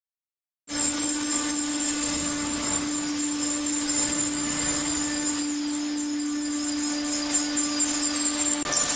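Aggregate-loading machinery of a concrete block plant running: a steady mechanical hum with a constant high whine and a noisy rush. It starts abruptly just under a second in and changes character shortly before the end.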